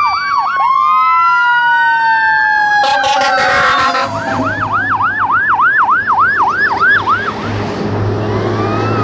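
Fire engine sirens passing: a wailing siren tone slides slowly down in pitch, a short horn blast sounds about three seconds in, then a fast yelp siren sweeps about four times a second. A truck engine rumbles underneath from about the middle as a fire engine passes close.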